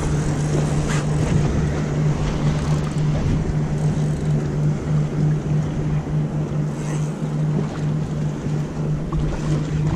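A boat's engine running at a steady idle, a constant low hum, with wind on the microphone and water around the hull.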